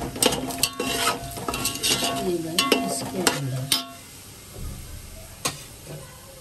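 A spoon knocking and scraping rapidly around a cooking pot as whole garam masala spices are stirred in hot oil, with sizzling. The stirring stops about four seconds in, leaving a quieter sizzle and one more knock.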